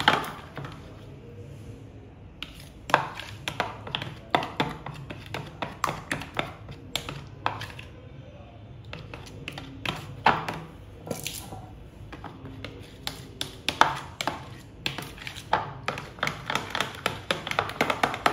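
A spoon stirring thick mayonnaise-and-ketchup sauce in a plastic bowl: irregular clicks and taps against the bowl, coming faster near the end.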